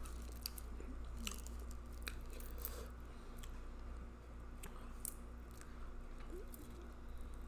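Close-miked chewing and lip smacking of spicy seafood boil food: a scatter of short, sharp wet mouth clicks at an irregular pace.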